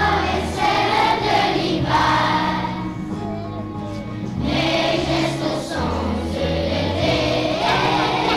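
A group of young schoolchildren singing a French-language song together over instrumental accompaniment with a steady low bass line. The voices drop out briefly about three seconds in, between phrases, then come back in.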